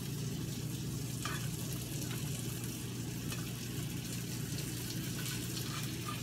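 Lion's mane mushroom pieces and onion frying in butter in a pan: a steady sizzle with scattered small crackles as more mushroom chunks are dropped in, over a steady low hum.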